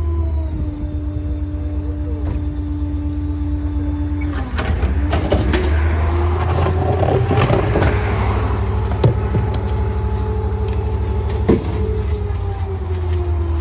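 Rear-loader garbage truck running at the kerb, its engine speeding up about four seconds in as the hydraulic packer cycles, holding, then slowing again near the end. Knocks and rattles from the hopper and bin around the speed-up, with a couple of single knocks later.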